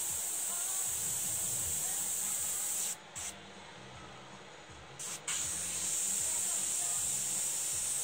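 Iwata gravity-feed airbrush spraying paint with a steady hiss of air. The hiss cuts off about three seconds in, with one short puff, and comes back about two seconds later with another brief puff before running steadily again.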